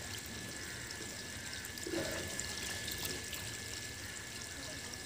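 Water pouring and trickling steadily into a goldfish tank, with a faint steady high tone alongside.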